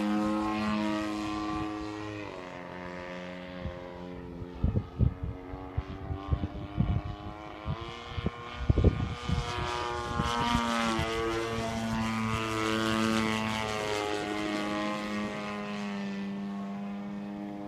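Single-cylinder two-stroke petrol engine (DLE55) and propeller of a large RC aerobatic plane in flight, its note rising and falling as the throttle and distance change, dropping about two seconds in and climbing again near the middle. Between about four and nine seconds a run of sharp irregular crackles or knocks is louder than the engine.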